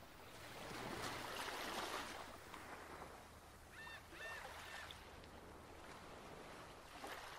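Sodium persulfate etchant sloshing in a plastic etching tray as it is rocked by hand over a copper circuit board, faint and coming in swells. Two short squeaks about four seconds in.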